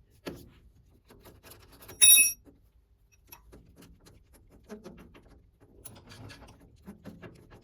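Metal tools and fittings handled on a lathe: scattered light clicks and knocks, with one sharp metallic clink about two seconds in that rings briefly.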